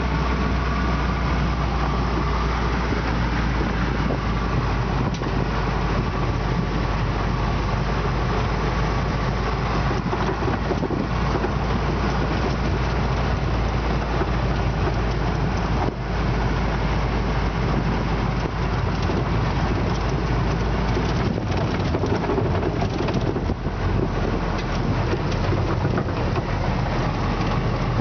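Willys MB/Ford GPW jeep's Go Devil four-cylinder engine running under way on a gravel dirt road, heard from inside the cab over tyre and road noise with scattered short body rattles. The engine note changes about three-quarters of the way through.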